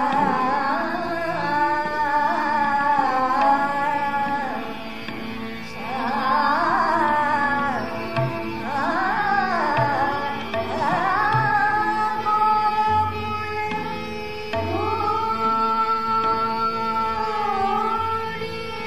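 A woman's voice singing a Hindustani classical thumri in slow, ornamented phrases that glide up and down, holding one long note for a few seconds near the end. A steady drone and tabla play underneath.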